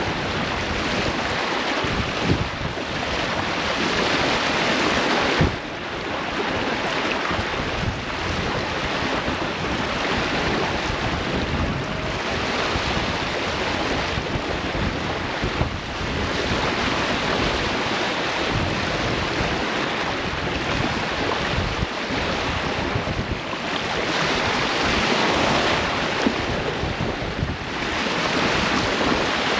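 Sea water rushing and splashing along the hull of a sailboat under way, with wind buffeting the microphone; the rush swells and eases every few seconds.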